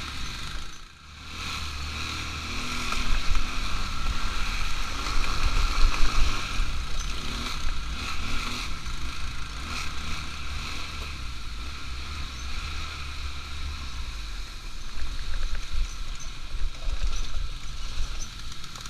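ATV engine running under way, with wind rumbling on the microphone; the sound drops briefly about a second in, then picks up again and rises and falls unevenly.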